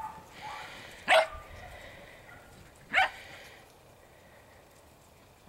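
Shetland sheepdog giving two short, sharp barks about two seconds apart, the first about a second in.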